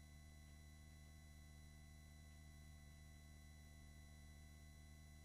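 Near silence: only a faint steady hum of several fixed tones, with no other sound.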